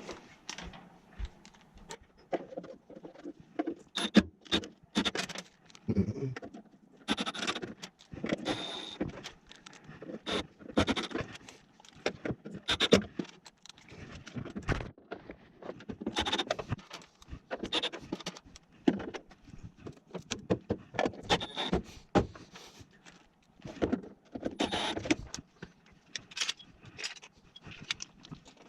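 Irregular clicks, taps and light metallic rattles of hand tools and small parts being handled while working on a furnace's header box, with no steady running machine.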